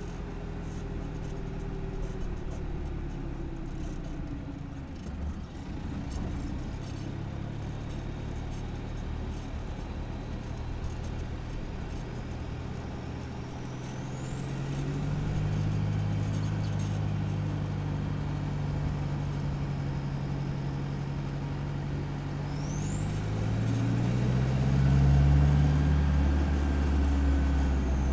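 Exhaust of an Isuzu KB300's 3.0 litre four-cylinder turbo diesel, heard from a microphone under the truck while driving: a low steady drone that grows louder as it pulls harder about halfway through and again near the end. Each time a thin high whistle rises in pitch with it, typical of the turbo spooling up.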